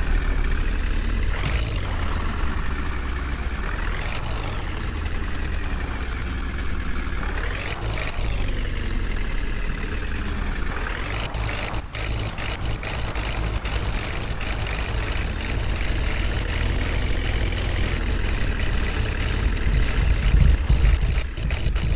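Heavy diesel machinery engine, a JCB backhoe loader or the truck it is pulling, running hard under load. Its pitch climbs and falls back about four times in the first half, then it runs more steadily with a deep rumble.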